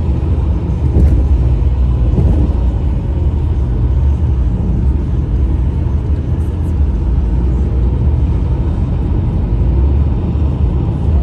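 Steady low rumble of a car driving at road speed: tyre and engine noise.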